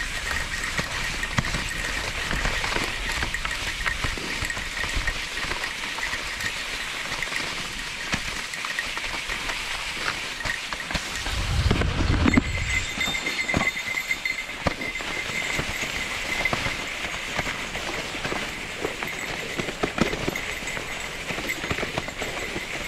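Kicksled runners sliding over snow: a steady crackling hiss full of small ticks. About twelve seconds in there is a heavier low rumble with a few knocks lasting about a second.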